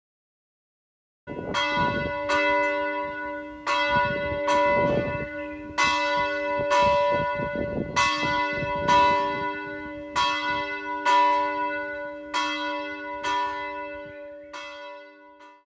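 Church bell tolling, about one stroke a second, each stroke ringing on into the next. The strokes start about a second in, grow weaker over the last few, and stop abruptly just before the end.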